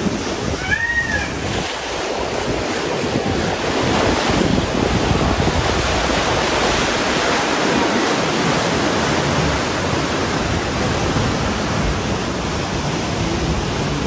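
Whitewater rushing and churning around a round river-rapids raft, with wind buffeting the microphone, growing louder about four seconds in. A brief high chirp sounds about a second in.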